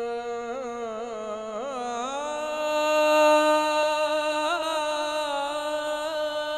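Male voice singing a naat with long drawn-out notes and wavering ornaments. The pitch climbs to a higher note about two seconds in and holds there with small turns until near the end.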